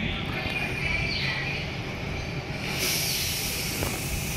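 Tobu 8000-series electric train standing at the platform with a steady low rumble, then a loud hiss of air from about three seconds in as its brakes release for departure.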